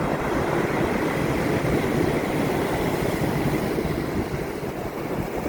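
Surf on a slightly rough sea: a steady rushing of foaming waves breaking and washing, dipping a little near the end.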